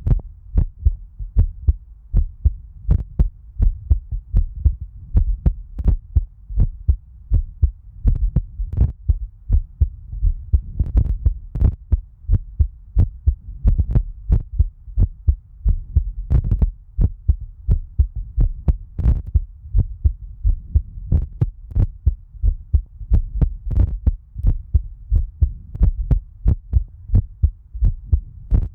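A person's heartbeat recorded up close: an even rhythm of low thuds over a steady low hum.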